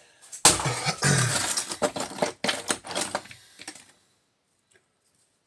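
Small pieces of scrap metal clattering and clinking as they are handled and sifted in a container: a dense run of rattling that lasts about three seconds.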